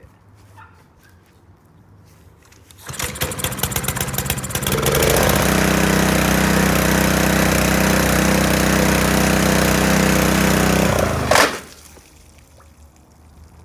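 Honda GC190 single-cylinder engine starting up, running loud and steady at speed, then stopping abruptly with a sharp knock about eleven seconds in as it hydrolocks.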